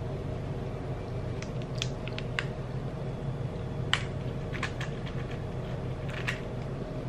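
Light clicks and rattles of roasted peanuts and a plastic peanut jar being handled as fingers reach in among the nuts, in a few scattered clusters with the sharpest click about four seconds in, over a steady low hum.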